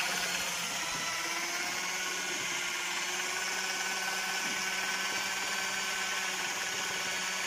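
Electric drill with a paddle mixer stirring freshly tinted paint in a plastic bucket, its motor running at a steady speed.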